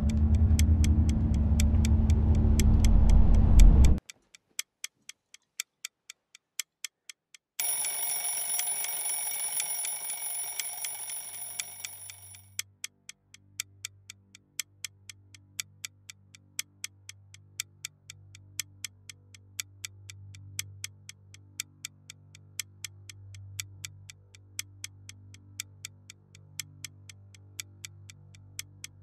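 A clock ticking steadily throughout. A loud low drone cuts off suddenly about four seconds in. A few seconds later a bright ringing tone starts suddenly and fades away over about five seconds, and soft low music then plays under the ticking.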